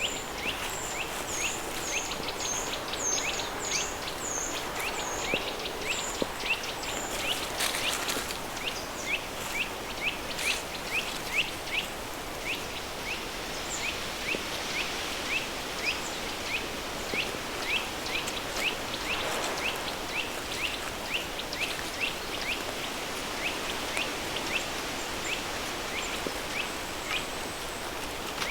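River stream flowing under a steady layer of added pink noise, with a bird calling all through: a short falling chirp repeated about twice a second, and higher whistled notes in the first few seconds.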